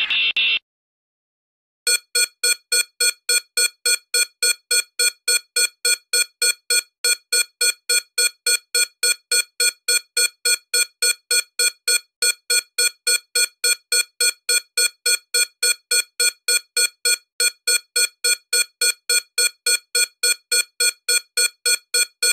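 Electronic beeper sounding a rapid run of identical short, buzzy beeps at one pitch, about three a second, starting about two seconds in. A brief hiss cuts off just before it.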